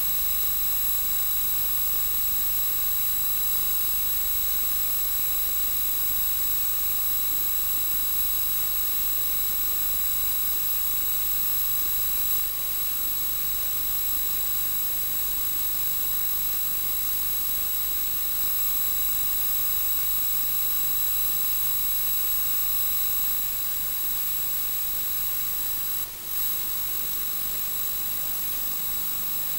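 Steady machine whine over a constant hiss, typical of a film projector's motor and fan running while an old home movie is played, with a brief dropout about 26 seconds in.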